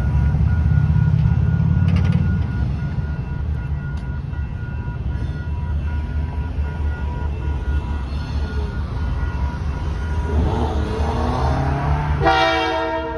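A grade-crossing warning bell, a new Western-Cullen-Hayes electronic bell, dinging steadily over a low rumble of traffic and an approaching train. About twelve seconds in, a locomotive air horn sounds loudly.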